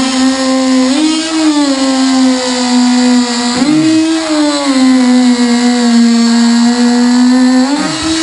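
A handheld power cutting tool runs continuously with a high, steady buzz. Its pitch sags as it bites into the work and springs back up each time it is eased off, three or four times, like a blade being worked through the urethane that holds the truck's back glass.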